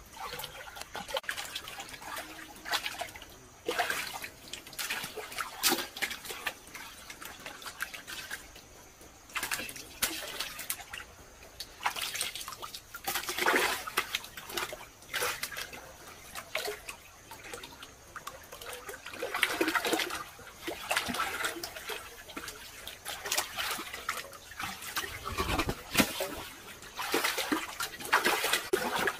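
Shallow muddy water sloshing and splashing in irregular bursts as a person wades through it, churning it with the feet and hands.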